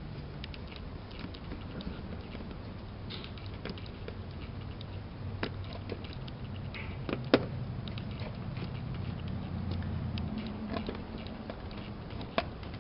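Light hand work on a Corvette C5 tail lamp assembly: scattered faint clicks and rattles, with two sharper clicks about five and seven seconds in, over a low steady hum.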